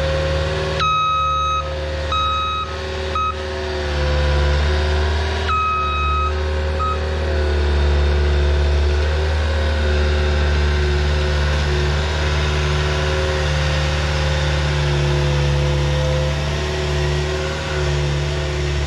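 Diesel engine of heavy earthmoving equipment running steadily, with a backup alarm beeping a few times in the first seven seconds.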